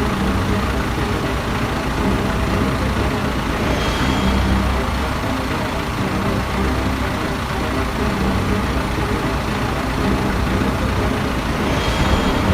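Large engine running steadily at a constant speed, with a slight swell about four seconds in and again near the end.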